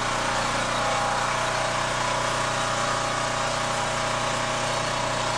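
An engine running steadily at idle: a constant, unchanging hum with an even rushing noise over it.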